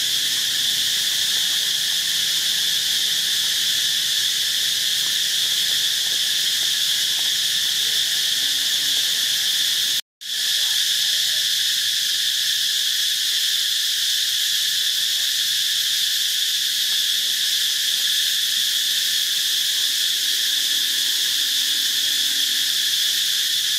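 Steady, shrill drone of a dense insect chorus, even and unbroken. It cuts out for a moment about ten seconds in, then carries on as before.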